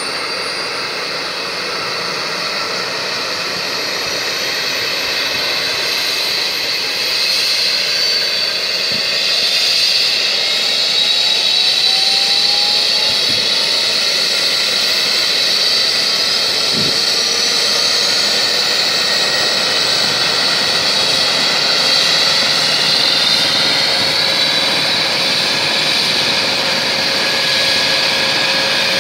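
Eurocopter EC135 helicopter running on the ground with its rotor turning: its twin turbine engines whine and climb slowly in pitch as they spool up, growing louder over the first ten seconds or so.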